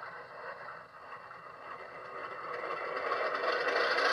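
Diesel engine sound from a SoundTraxx Tsunami Economi sound decoder, played through a small sugar cube speaker in an HO scale Class B diesel locomotive model. It swells louder over the second half.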